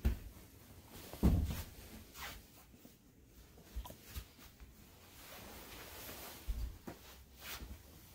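Soft footsteps of tabi-socked feet on tatami mats, a series of dull thumps, the loudest about a second in. Near the end a few more thumps as the walker kneels down on the mats.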